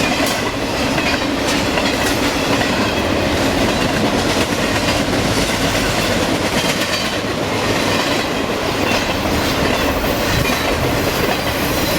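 A train running past on the track: a loud, steady rumble of steel wheels on the rails.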